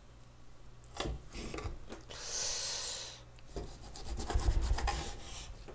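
Kitchen knife cutting chicken breast on a wooden cutting board: a knock of the blade on the board about a second in, a scraping stretch as the blade saws through the meat and its tough skin, then a quick run of short cutting strokes against the board.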